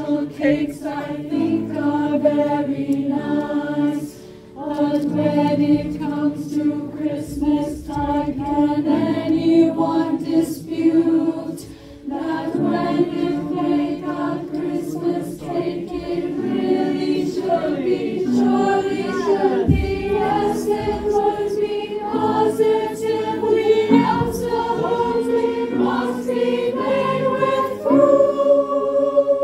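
A choir singing, holding sustained chords, with two short breaks between phrases about four and twelve seconds in.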